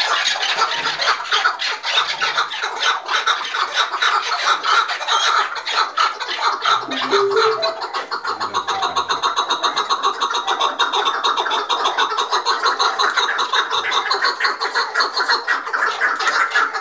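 Several chukar partridges calling together in a fast, continuous chatter of short chuck notes: the excited calling of rival birds squaring off.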